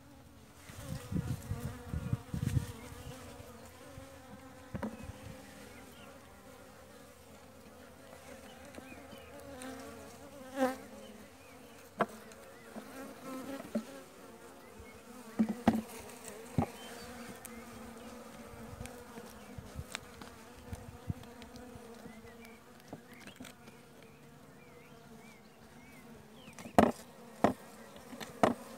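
Honeybees buzzing steadily around an open hive. Scattered sharp clicks and knocks from frames and a metal uncapping fork being handled cut through the hum, the loudest two close together near the end.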